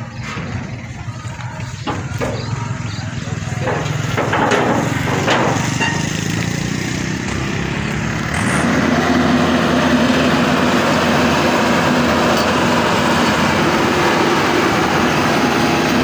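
A Maxxi Bimo 102 rice combine harvester's engine running, with a few sharp knocks in the first half. From about eight seconds in, the engine sound turns louder and steady as the tracked combine drives along.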